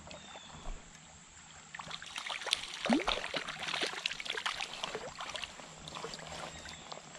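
A small hooked brown trout splashing and thrashing at the water's surface as it is played in, a run of irregular splashes starting about two seconds in, over the faint flow of the stream.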